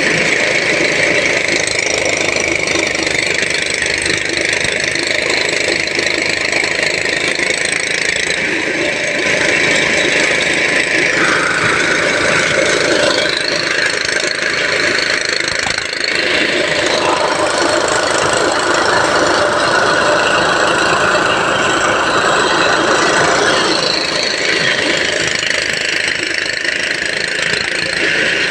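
A diesel engine running hard under heavy load, with a high whine over the engine noise; the note shifts several times as the load or revs change.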